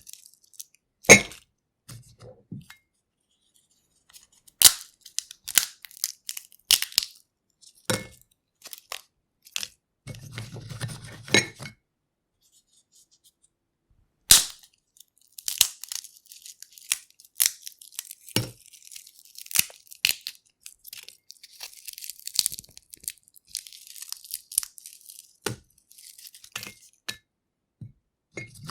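Peanut shells cracked and peeled by hand: sharp irregular cracks of breaking shells with dry crackling and rustling of the husks between them.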